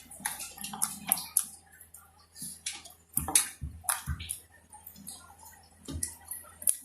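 Homemade glue slime being squeezed and kneaded by hand, giving irregular wet clicks and pops as air pockets burst.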